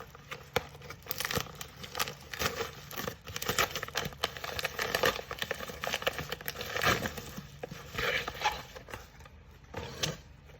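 A shipping package being torn open by hand, with irregular crinkling and ripping of the packaging.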